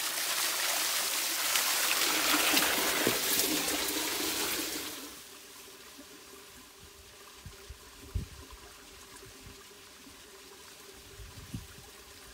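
Hot spring water pouring in a thin stream into a rocky pool, heard up close as a steady splashing rush. About five seconds in, the rush drops to a faint trickle, with a couple of soft knocks later on.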